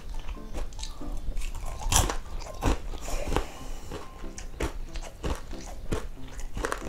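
Close-miked crunching and chewing of crispy deep-fried chicken skin, with sharp, irregular crunches spread through the chewing. The loudest come about two seconds in and again just under three seconds in.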